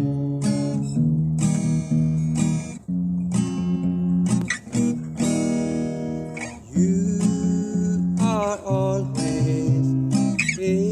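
Background music: a strummed acoustic guitar playing chords at a steady level.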